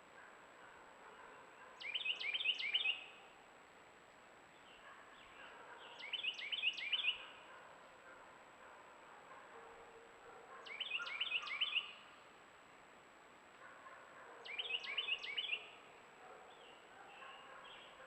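A songbird sings the same short phrase of quick repeated down-slurred notes four times, about every four seconds, over the steady rush of a stream running high after rain. Fainter calls of other birds sound between the phrases.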